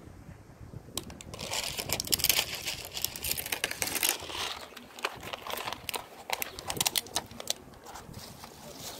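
Close-up crinkling and crackling of a plastic bag of dry cat food as kibble is poured onto a concrete curb, in two spells of sharp rustling, the second starting about six seconds in.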